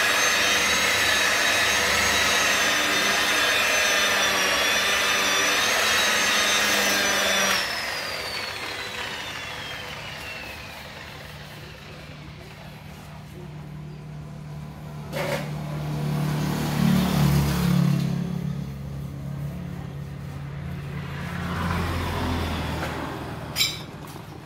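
Electric rotary polisher with a foam pad running at speed on a car's body panel, a steady high whine; about seven seconds in it is switched off and its whine falls as it spins down. A low hum swells in the middle and a sharp click comes near the end.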